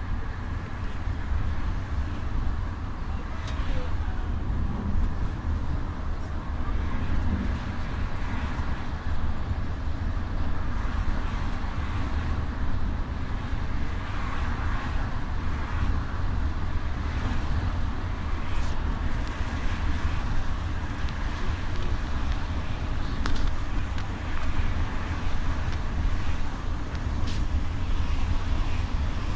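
Inside a coach driving at motorway speed: a steady low engine and tyre rumble with even road noise.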